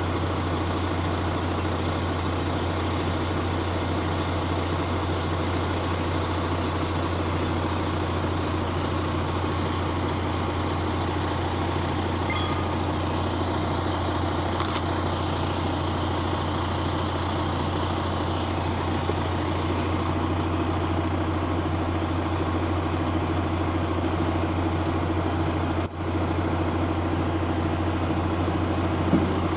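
A motor vehicle engine idling: a steady, unchanging low hum that dips briefly near the end.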